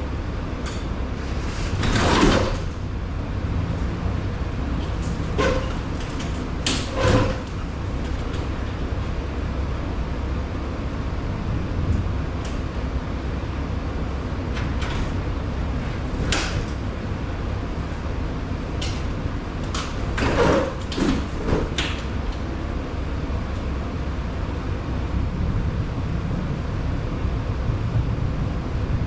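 Metal clanks and rattles from a damaged sectional garage door being worked by hand, its cable unspooled so the door sits crooked and is hard to bring down; a handful of sharp knocks come irregularly, the loudest about two seconds in, about seven seconds in and around twenty seconds in, over a steady low rumble.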